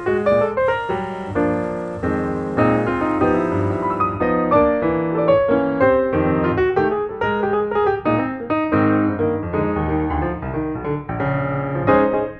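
Background piano music, with notes played one after another without a break.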